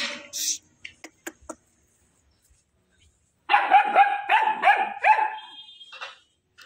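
Labrador retriever puppy barking about five times in quick succession, short high yaps that each drop in pitch, starting about three and a half seconds in.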